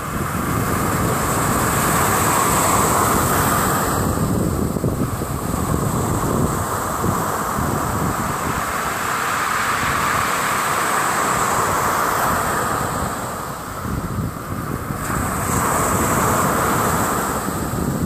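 Ocean surf breaking and washing up the beach in a continuous roar, surging loudest about two to four seconds in and again near the end, with a dip in between. Wind rumbles on the microphone underneath.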